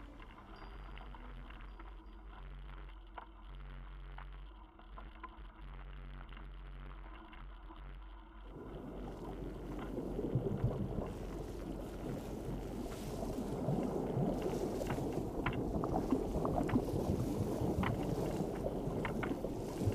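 Mountain bike riding over a rough dirt and gravel track, heard from a camera on the bike: a rough rumble of tyres and wind with small rattles, which comes in about eight seconds in and grows louder. Faint music sits under the first part.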